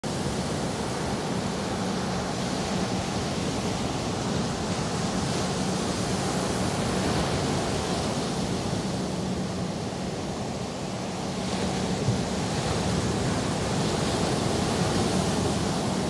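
Atlantic Ocean surf washing onto a sandy beach: a steady rush of breaking waves that eases slightly past the middle and swells again.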